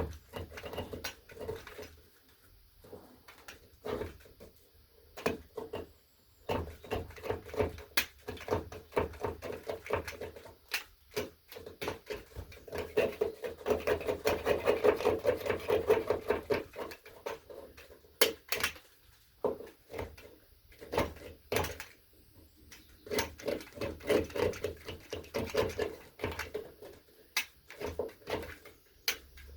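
Blade scraping and cutting thick layers of old paint off a hinge: bouts of quick scraping strokes with clicks and knocks, the longest and loudest run in the middle, with short pauses between bouts.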